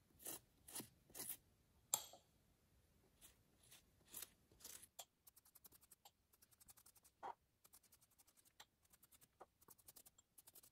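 Pastry brush stroking melted butter over the crusts of freshly baked brioche buns: a few soft brushing strokes, a sharp tap about two seconds in, then runs of quick, light ticking scratches.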